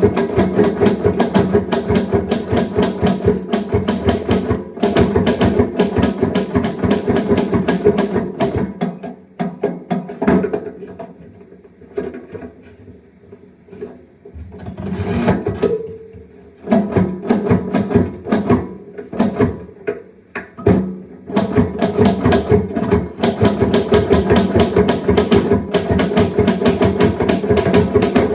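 Typewriter being typed on fast in dense runs of keystrokes, thinning to scattered keystrokes for several seconds in the middle before picking up again.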